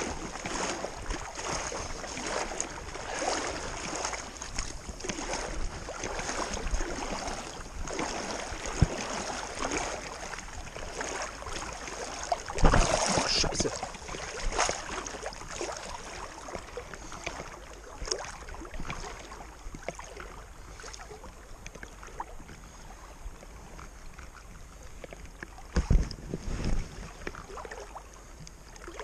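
Water swishing and sloshing around waders as someone wades out through shallow, calm sea water, in irregular strides. There is a louder bump about halfway through and another near the end.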